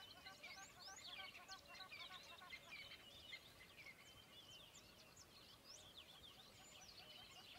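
Faint chorus of many small birds chirping and twittering, a dense run of quick, rapidly sweeping high chirps that never pauses.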